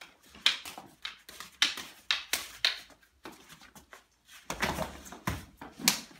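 Rattan practice sticks clacking against each other in quick, irregular strikes of a single-stick hubud drill, followed by a couple of heavier thumps and one more sharp crack near the end.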